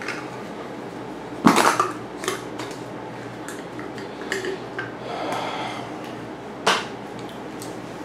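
Metal bike parts and tools being handled, clinking and clanking in several separate knocks, with a sharp clank about one and a half seconds in and another near the end.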